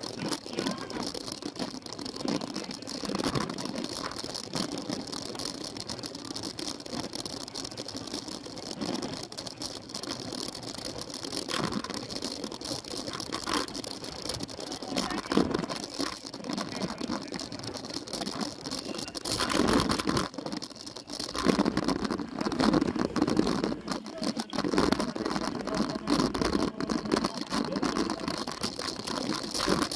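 Cyclo-cross bike rattling and jolting over a rough dirt course, heard from on board the bike, with a steady hiss. The rattling grows louder for a few seconds a little past the middle.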